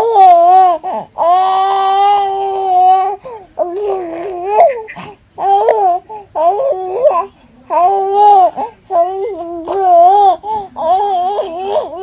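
A high, childlike voice babbling in sing-song wordless phrases, some drawn out and some short, with brief pauses between them.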